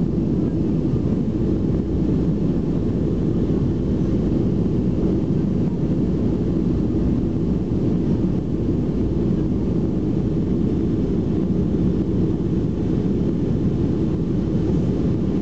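Steady, deep cabin noise of a Boeing 757's two turbofan engines at takeoff thrust, heard from inside the cabin as the jet lifts off and climbs.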